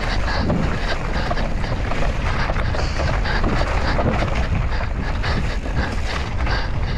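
Mountain bike being ridden on a woodland trail: wind buffets the microphone over a steady rush of tyre noise, with frequent short rattles and knocks from the bike over rough ground.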